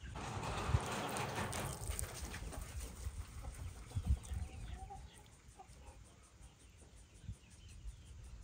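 Water pouring from a watering can onto a freshly planted pot of flowers, a splashing hiss for the first two seconds or so that then dies away. Chickens cluck faintly in the background.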